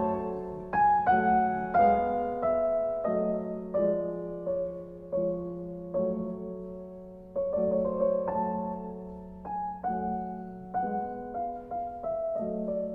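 Slow, gentle piano music: single notes and chords struck one after another, each ringing and fading away.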